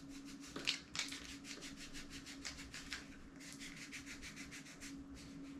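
Quick, even rubbing strokes, about six a second, wiping at a camcorder's plastic lens hood whose coating has gone sticky after cleaning with rubbing alcohol. Two light knocks come near the start.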